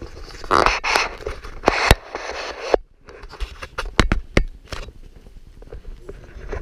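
Handling noise on a hand-held camera's microphone: rough rubbing and scraping for the first few seconds, then a series of sharp knocks and clicks.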